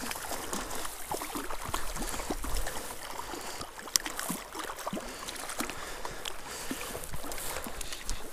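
Stream water splashing and gurgling as a hooked fish is played on a tenkara rod, with a low wind rumble under it. A sharp click comes about four seconds in.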